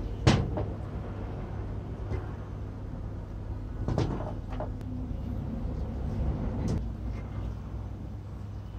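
Rusty metal parts being handled and knocked together: a sharp clink about a third of a second in, with quieter knocks around four seconds in and again near seven seconds, over a steady low hum.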